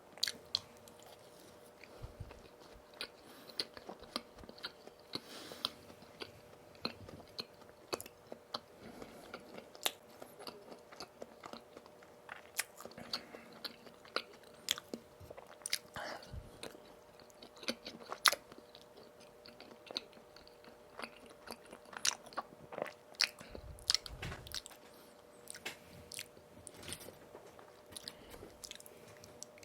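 Close-miked chewing and biting of donuts, with frequent short, sharp crackly clicks from mouth and dough. A faint steady electrical hum runs underneath.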